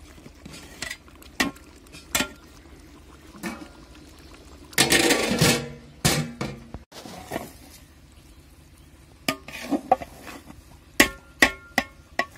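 Long metal ladle clanking and scraping against a large aluminium cooking pot and its lid. Scattered clinks, a longer scrape about five seconds in, and a quick run of clanks near the end.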